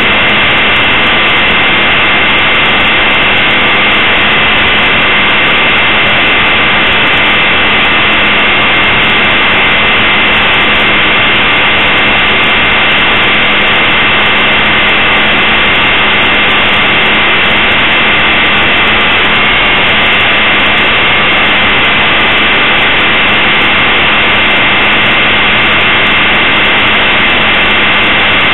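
Blade 450 3D RC helicopter in flight, heard from on board: the brushless motor, gears and rotor make a loud, steady high whine over a constant rushing noise.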